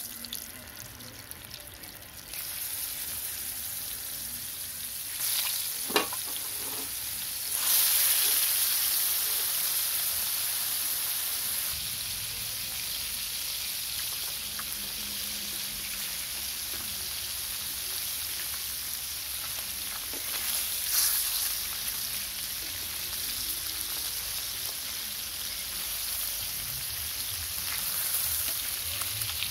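Spice-marinated catfish pieces sizzling in hot oil in an iron kadai. The sizzle grows louder about two seconds in and again about eight seconds in as more pieces go into the oil, with one sharp click about six seconds in.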